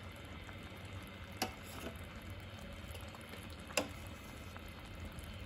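Raspberry and currant jam bubbling steadily at a boil in a stainless steel pot, with a metal spoon clicking against the pot twice as the foam is skimmed.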